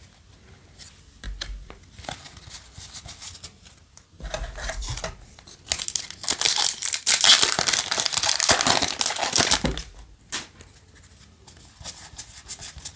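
Foil wrapper of a Yu-Gi-Oh! booster pack crinkling and tearing as it is ripped open by hand, loudest for about four seconds in the middle. Before and after it, trading cards rustle and click as they are shuffled through in the hands.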